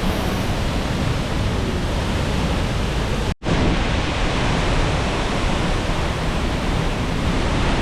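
Large waterfall close by: a loud, steady rush of falling water, heavy in the low end. It cuts off for an instant about a third of the way through, then resumes.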